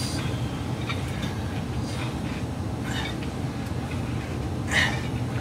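Steady low rumble under a lifter's hissing exhales during barbell curl reps, roughly every couple of seconds. The strongest exhale comes near the end.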